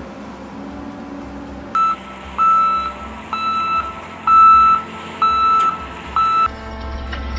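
A vehicle's reversing alarm beeping six times at an even pitch, about once a second, over a low background hum; near the end the beeping stops and a low engine-like rumble rises.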